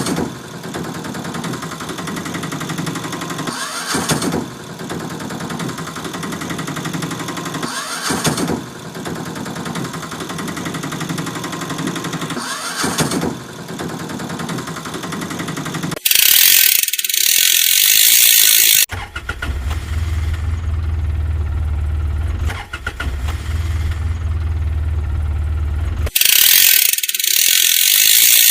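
Machine and vehicle sound effects. An engine-like drone with a rising sweep about every four seconds, then a loud ratcheting clatter, a low steady hum, and the clatter again near the end.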